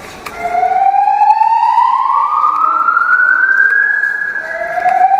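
A siren wailing, its pitch sweeping slowly upward over about four seconds, then dropping back and starting a new rise near the end.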